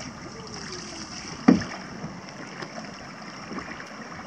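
An open canoe being paddled through a sharp turn, with paddle splashes and water against the hull. A single loud, low thump comes about a second and a half in.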